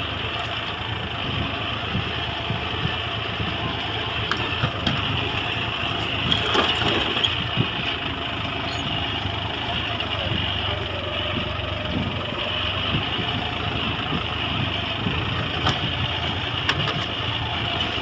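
John Deere tractor's diesel engine running steadily while ploughing.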